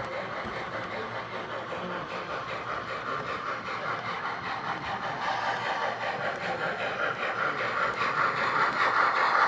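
HO-scale model Triplex steam locomotive and freight cars running along the track, a steady rolling and motor noise that grows steadily louder as the train comes closer.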